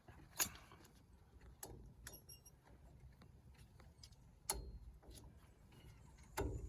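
Hand tools and drum brake hardware clicking and knocking during rear drum brake disassembly: a few separate sharp clicks, the loudest about half a second in, and two duller knocks, one past the middle and one near the end.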